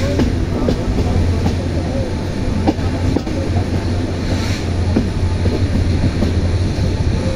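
Steady low rumble of a moving train, heard from on board.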